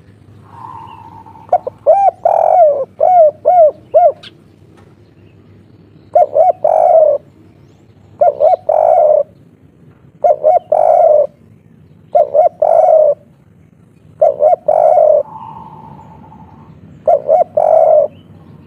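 Spotted dove (derkuku) singing the local 'kuk 3' song. It opens with a quick run of looping coos, then gives six phrases a couple of seconds apart, each two short coos followed by a longer drawn-out coo.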